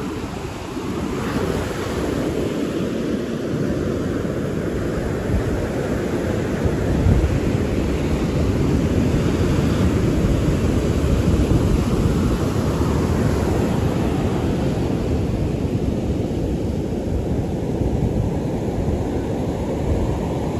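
Surf breaking on the shore with wind buffeting the microphone: a steady low rumbling wash that swells and eases.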